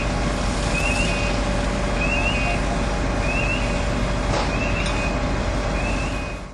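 Heavy truck engine running steadily with a constant hum, while a short, high electronic chirp repeats about every second and a quarter. The sound cuts off abruptly at the end.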